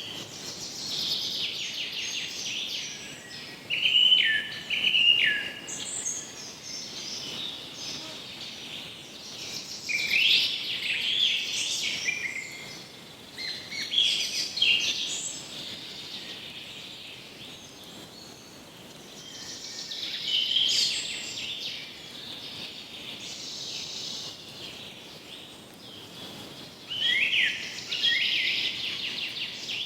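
Songbirds singing: phrases of quick chirps and trills come every few seconds, with quieter gaps between them. One phrase about four seconds in steps down in pitch.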